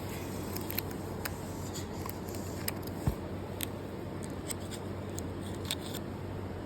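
Effervescent tablet fizzing in water: irregular small crackles and pops of bursting bubbles over a steady low hum, with one low thump about three seconds in.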